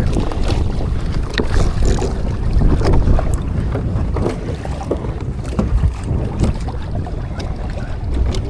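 Wind buffeting the microphone over water lapping and splashing against a Hobie sailing kayak's hull while it sails, with many small ticks and knocks throughout.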